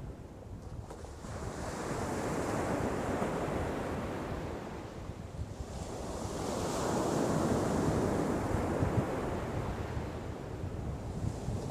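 Ocean waves washing onto a beach, swelling and ebbing twice, with the second surge the louder one, and wind rumbling on the microphone.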